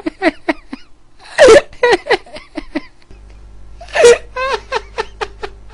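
A person laughing hard in two fits, each opening with a loud high-pitched burst and running on into a string of quick, short 'ha-ha' pulses, about six a second.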